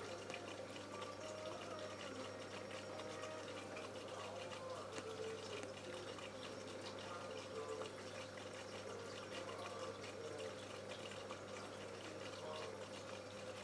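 Faint steady trickling and bubbling of aquarium water over a low, even hum.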